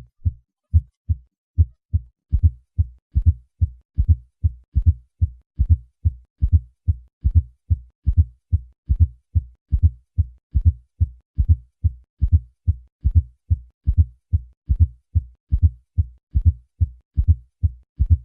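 Heart sounds with a fourth heart sound: low-pitched thuds in a repeating triple (gallop) rhythm, a cycle about every 0.8 s. The fourth heart sound falls just before the first heart sound and is a sign of a stiff, non-compliant ventricle.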